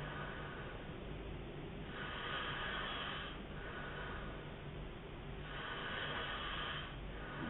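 A man snoring in his sleep: two slow breathing cycles, each a noisy in-breath lasting about a second followed by a shorter, softer out-breath.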